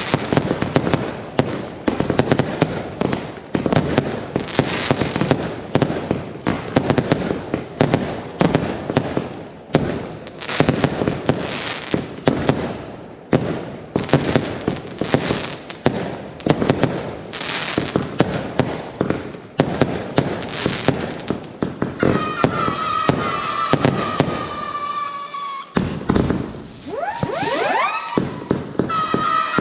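Fireworks display: a dense, rapid run of bangs and crackling bursts. In the last few seconds the bangs thin out, and high sustained whistling tones, with a couple of rising whistles, take over.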